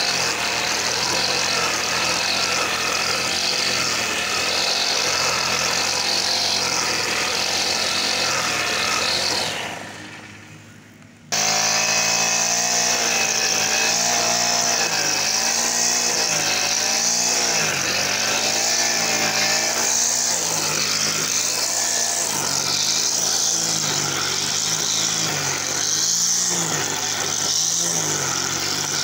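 Brush cutter with a nylon line head running at high speed while cutting grass, its engine pitch wavering up and down, with a high hiss from the spinning line. The sound fades out about ten seconds in and comes back abruptly a second later.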